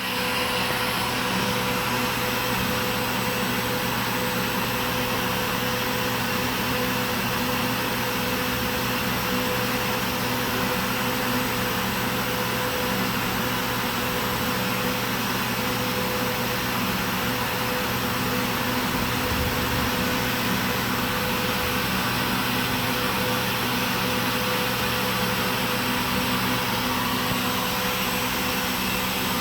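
Kaeser SFC 15 20 hp variable-speed rotary screw air compressor running steadily: a constant hum with several held tones over a rushing noise, with no change in speed.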